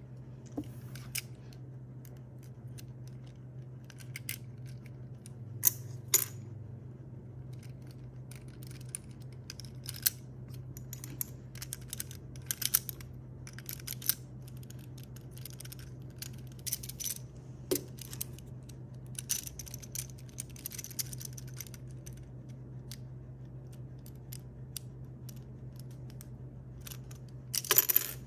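Plastic Lego Technic pieces clicking and clacking as they are handled and fitted together: scattered sharp clicks, with a louder burst of clatter near the end. A steady low hum runs underneath.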